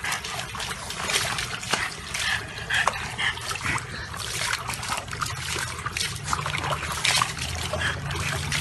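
Water splashing and sloshing in a plastic tub as a French bulldog sits and shifts about in it, with many small irregular splashes.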